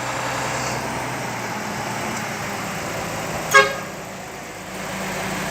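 Diesel truck engine running steadily, with a single short, sharp horn beep about three and a half seconds in; the engine sound drops a little for a moment after it.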